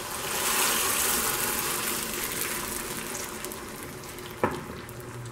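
Water poured into a hot skillet of rice fried in butter, gushing and hissing, loudest in the first second or two and then dying away as the pan settles. A single sharp knock comes near the end.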